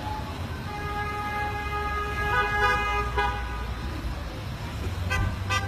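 Car horn held down for about two and a half seconds, then a quick run of short toots near the end, over the low rumble of street traffic.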